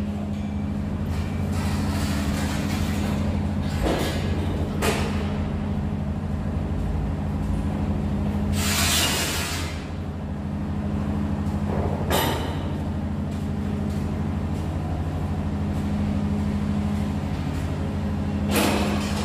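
Steady low mechanical hum of running machinery, with a few brief hissing swishes on top, the longest about nine seconds in.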